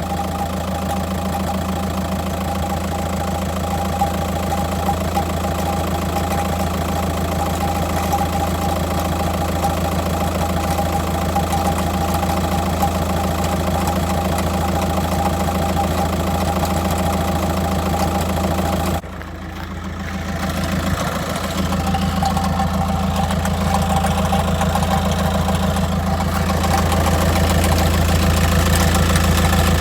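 2006 Volkswagen Jetta TDI's 1.9-litre BRM four-cylinder diesel idling with the clutch released, with a clunking rattle that appears only once the clutch is engaged. The level drops briefly about nineteen seconds in, then builds back.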